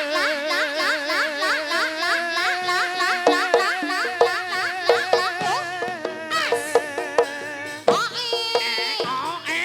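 Javanese jaranan dance music, with no singing. A high melody repeats quick upward slides over a held, wavering lower tone, and short struck notes join in from about three seconds in.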